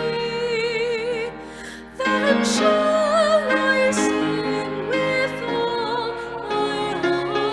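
Congregation singing a hymn with piano accompaniment, a voice with wide vibrato standing out above the rest. The singing drops away briefly between phrases and comes back in louder about two seconds in.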